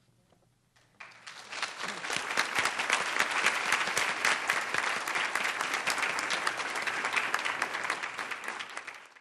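Audience applauding: after a brief hush, the clapping starts about a second in and swells quickly to a full, steady applause. It tapers off near the end and cuts off abruptly.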